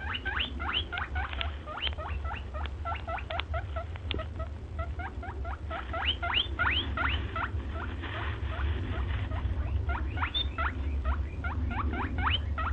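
A small animal's rapid, high squeaks, each a quick upward sweep in pitch, several a second with a short lull about eight seconds in, over a steady low hum.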